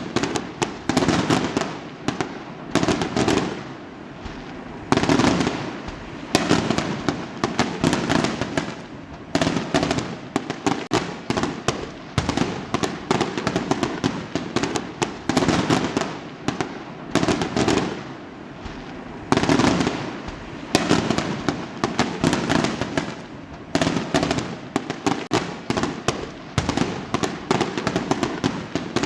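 Fireworks going off without pause: a dense run of sharp bangs and crackles, with louder bursts every second or two.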